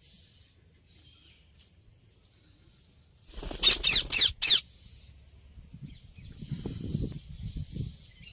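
Indian ringneck parrot screeching: four loud, shrill calls in quick succession, each falling in pitch, about three and a half seconds in. Soft low rustling follows.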